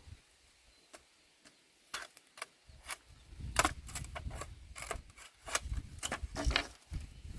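Irregular sharp clicks and light knocks, with one click about a second in and more frequent ones from about two seconds in, over a low rumble.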